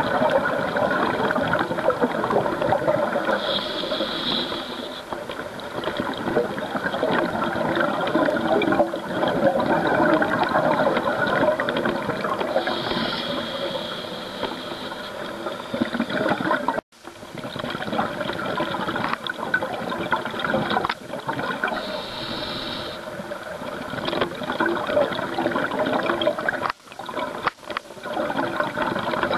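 Scuba breathing through a regulator, heard underwater: a short hissing inhale about every nine seconds, each followed by a long bubbling rush of exhaled air. The sound cuts out briefly twice.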